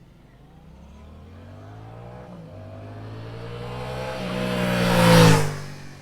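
Yamaha MT-07 on its stock exhaust riding past, its 689 cc parallel-twin engine note rising as it approaches under throttle. It is loudest about five seconds in, then falls away quickly as it goes by.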